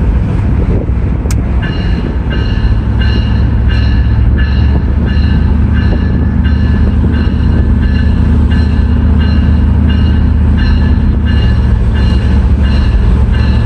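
Locomotive bell mounted on a pickup truck ringing over and over at a steady pace, about two to three strokes a second, starting a couple of seconds in, over a steady low drone.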